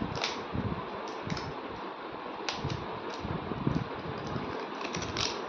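Thin plastic wrapper crinkling in short crackles as it is peeled off a plastic surprise toy egg, over a steady hiss.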